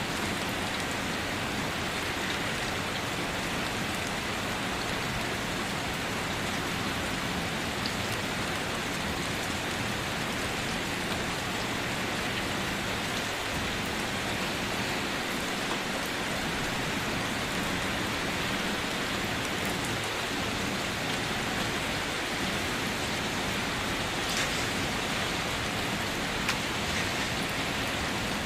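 Steady rain drumming on a car's roof and body, an even hiss with a few sharper drop ticks now and then.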